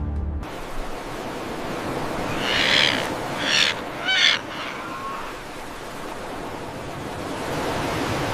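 Three bird calls about two and a half to four and a half seconds in, the last trailing down in pitch, over a steady rushing noise.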